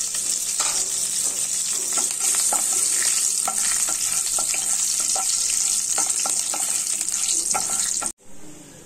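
Whole spices (bay leaves, cinnamon, cloves, cardamom) sizzling in hot oil in a nonstick kadai, tempering before the rice goes in. A wooden spatula stirs them with repeated light knocks against the pan. The sizzle cuts off suddenly near the end.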